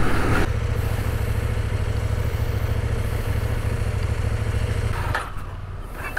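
CF Moto 800MT's parallel-twin engine running steadily at low revs over a dirt trail, heard from on the bike. It drops quieter about five seconds in as the throttle closes.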